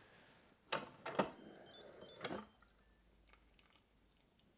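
Three light clicks and knocks from the cooker and utensils being handled, with faint short high squeaks between them.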